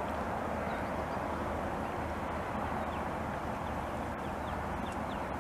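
Faint, short high peeps of mallard ducklings scattered throughout, over a steady outdoor background rush.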